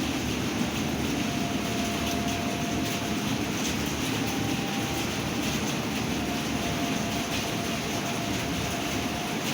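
Steady rush of a night storm, with a faint, thin whistling tone that comes and goes and shifts slightly in pitch; the source of the tone is not known.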